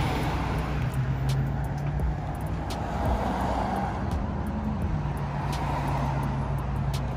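Car engine running with road noise, heard from inside the cabin. The engine note rises briefly and drops back about five seconds in.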